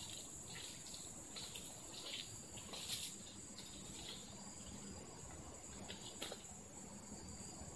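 Steady high-pitched insect chorus, with a few faint short rustles from footsteps through dry palm fronds.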